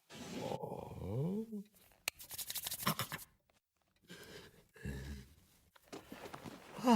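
A man's wordless vocal noises: a rising grunt about a second in, a rasping, scraping noise about two seconds in, a low grunt, then a falling moan near the end.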